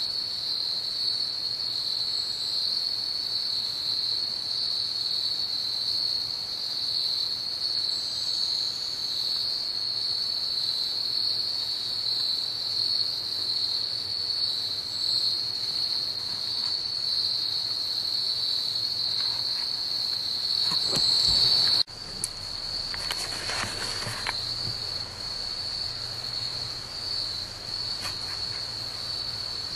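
Steady, high-pitched trilling chorus of insects, unbroken except for a sudden short drop about 22 seconds in, followed by a brief rustling noise.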